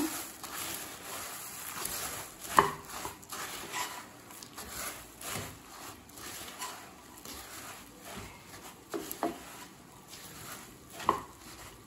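Wooden spatula stirring puffed rice into sticky jaggery syrup in a pan: an irregular scraping and rustling, with a few sharp knocks of the spatula against the pan, the loudest about two and a half seconds in.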